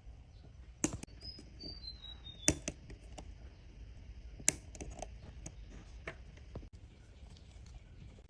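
Small metal tools clicking and tapping on watch parts, with three sharper clicks about two seconds apart among lighter ticks.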